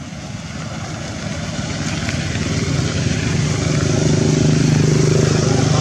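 A motor engine running with a steady low hum, growing steadily louder for about four seconds and then holding.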